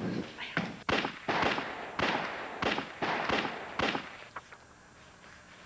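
A string of six sharp gunshots, spaced about half a second to two-thirds of a second apart, each with a brief ring-out.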